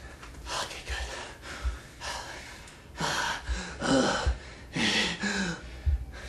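Breathy gasps and breaths from a person, then several short voiced sounds from about three seconds in.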